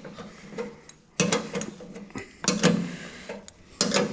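A wrench working a bolt on farm machinery, the nut duct-taped into the wrench: short spells of metallic clicking and clinking, three times about a second apart.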